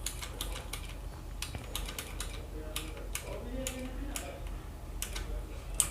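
Cosmic Byte CB-GK-12 mechanical keyboard with clone blue switches, clicking in an irregular scatter of light, sharp clicks, with a slightly louder click near the end.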